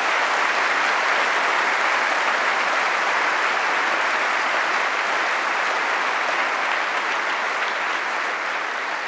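Large audience in a conference hall applauding steadily, dying away gradually near the end.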